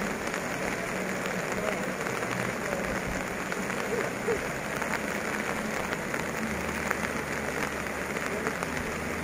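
Steady hiss of heavy rain mixed with the rushing of a flooded river.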